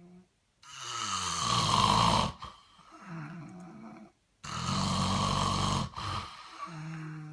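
A man snoring in his sleep: two loud snores about three and a half seconds apart, each lasting about a second and a half, with quieter, tonal breaths between them.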